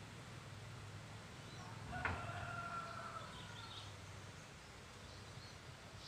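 A rooster crowing once: a single long call that starts abruptly about two seconds in and fades after about a second, with faint chirps of small birds around it.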